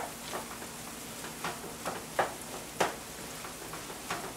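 Ground turkey sizzling steadily in a skillet while a wooden slotted spatula stirs it, with irregular scraping strokes about every half second.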